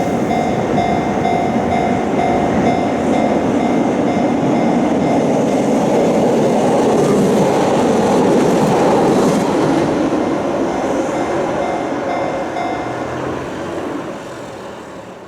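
A train running past a Japanese level crossing, loudest about eight seconds in and fading away over the last few seconds, while the crossing's warning bell rings its repeated 'kan-kan' tone over it.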